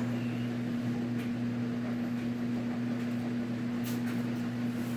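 Steady low electrical hum, with faint rustles of comics being handled about a second in and near the end.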